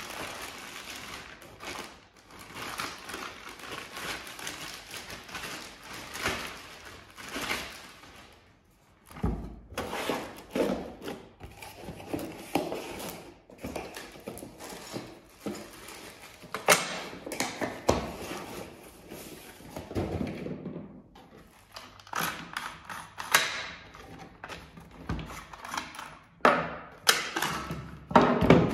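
Plastic wrapping rustling and crinkling as it is pulled out of a cardboard box. After that come cardboard handling and scattered thunks and clicks as parts of an MP-155 semi-automatic shotgun are lifted out, handled and set down on a wooden table.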